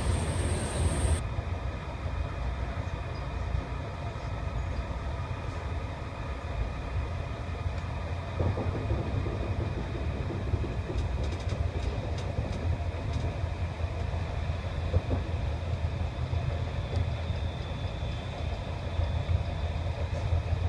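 Passenger train running along the track, heard from inside a carriage: a steady low rumble of wheels on rails, with a few faint clicks around the middle.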